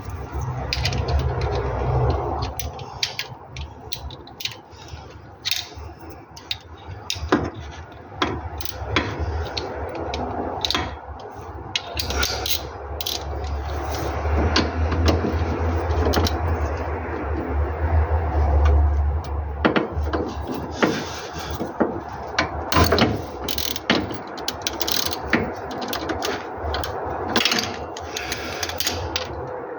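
Hand ratchet wrench clicking in runs, with metal tools and parts knocking, as bolts are undone by hand.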